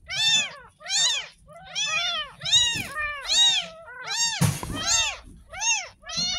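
Ten-day-old kitten mewing over and over, about ten short high mews that each rise and fall in pitch, roughly one and a half a second. A brief noisy scuff comes about four and a half seconds in.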